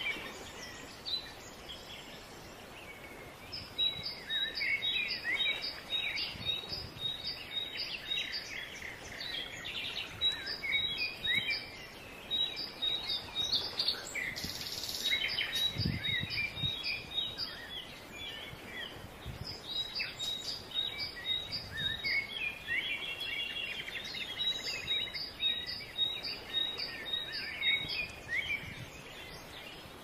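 Several songbirds chirping and singing, with repeated runs of quick, high, even notes and scattered short trills, over a faint steady wash of calm sea water. A short rush of noise comes about halfway through.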